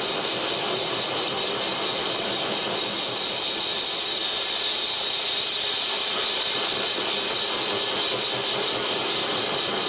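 Harsh noise music played live on electronics: a dense, unbroken wall of hiss and rumble, loudest in the upper range, with no beat or melody.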